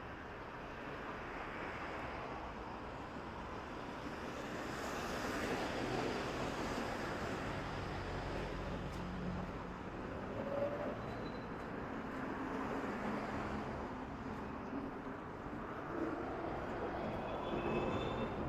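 Street traffic: a steady hum of road noise, with vehicles passing that swell and fade several times.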